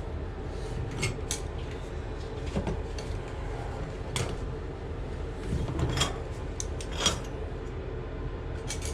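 Hand tools clinking and knocking against the metal parts of a tub/shower valve: about half a dozen short, scattered sharp clinks over a steady low hum.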